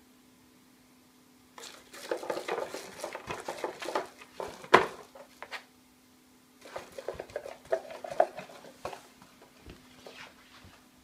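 Small cardboard box scraped, knocked and rattled about as a kitten paws into it after a piece of candy, in two bursts of scratchy clicks and taps with one sharp knock near the middle.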